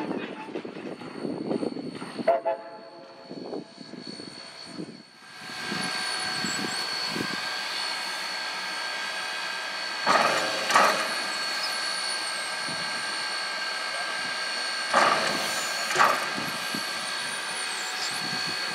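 Steam locomotive 493, a narrow-gauge 2-8-2, standing with steam venting from the top of its boiler: a steady hiss with ringing tones that sets in about five seconds in. Two pairs of short louder puffs break it partway through, and scattered knocks come before the hiss starts.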